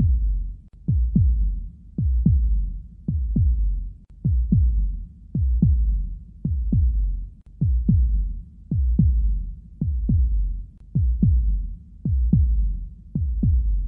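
Heartbeat sound effect: slow, steady lub-dub double thumps, about one pair a second, each thump dropping in pitch, over a low rumble.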